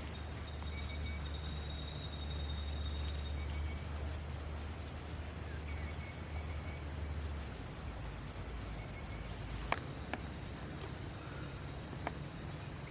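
Outdoor ambience with short, high bird chirps scattered through it over a low steady rumble that stops about two-thirds of the way in; a few sharp clicks come near the end.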